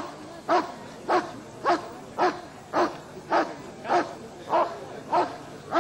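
A dog barking in a steady, even rhythm: about ten short barks, each a little over half a second after the last.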